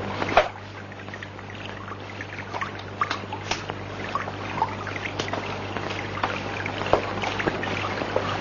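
Shower water running and splashing in irregular trickles, with a sharp click about half a second in, over a steady low hum.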